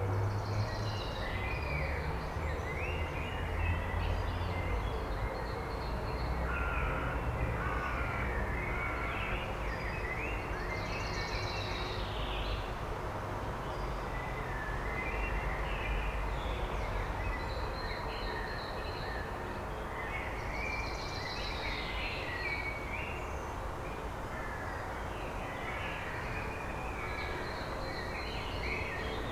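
Male common blackbird singing: about six song phrases with pauses between them, each a run of lower notes that ends in a higher twitter. A steady low rumble runs underneath.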